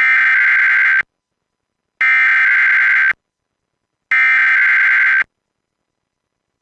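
Emergency Alert System SAME header: three identical bursts of digital data tones, each about a second long with about a second of silence between. It is the coded header of an automated weekly EAS test.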